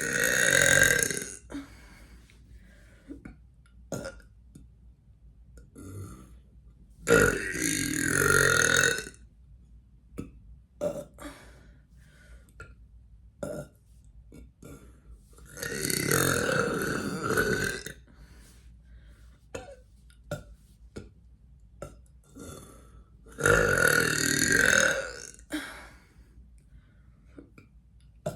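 A person letting out four long, loud burps, each lasting about two seconds and spaced some seven to eight seconds apart; the first is already under way at the start. Short faint clicks fall in the pauses between them.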